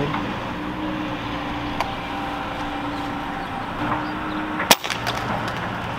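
A suppressed pellet gun fires a single shot about three-quarters of the way in, a short sharp crack over a steady background hum.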